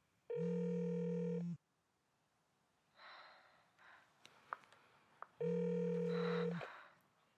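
Electronic phone ringtone sounding twice, each ring a steady chord-like tone lasting just over a second, with about four seconds between them; faint small clicks fall in the gap.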